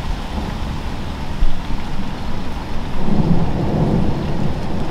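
Heavy rain falling steadily, with a low rumble of thunder swelling about three seconds in.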